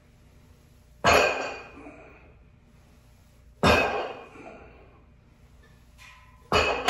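Weight plates on a loading pin set down on the floor three times, about every two and a half seconds, each a sharp clank that rings briefly: the bottom of each deadlift rep.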